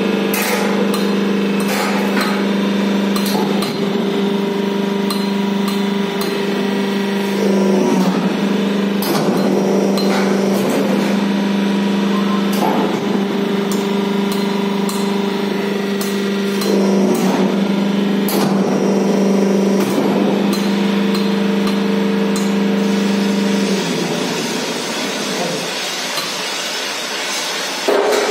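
CNC hydraulic press brake bending long steel sheet: the machine's pump motor hums steadily, with sharp metallic clanks as the sheet is handled and bent. The hum stops about three-quarters of the way through.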